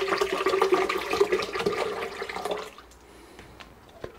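Water pouring from a plastic bottle into a Vitamix blender jar, a steady splashing stream that stops abruptly about two and a half seconds in, followed by a few faint clicks.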